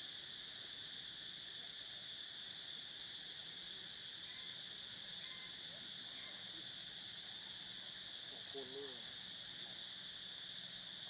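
Steady high-pitched drone of an insect chorus, even and unbroken. About eight and a half seconds in, a brief wavering low call rises over it, and a few faint short chirps come and go.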